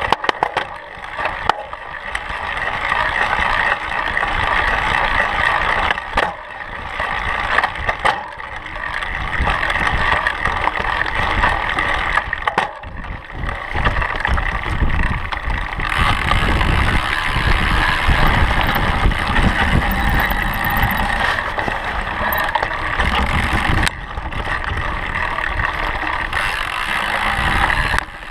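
Mountain bike rolling fast over a dirt singletrack: tyre noise on dirt with the bike and camera mount rattling and knocking over bumps, and wind on the microphone.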